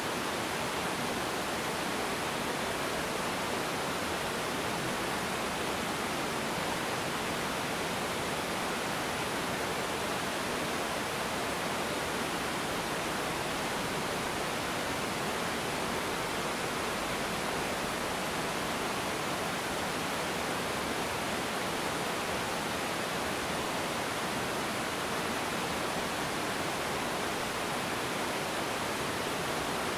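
Small river waterfall spilling over rocks: a steady, even rush of falling water.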